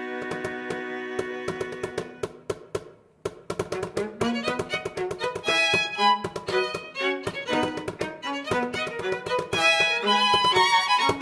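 Layered violins and viola playing a rhythmic film-score arrangement over tapping percussion. A held chord gives way to clicking taps, there is a brief pause about three seconds in, and then the strings come back with short, detached notes and taps.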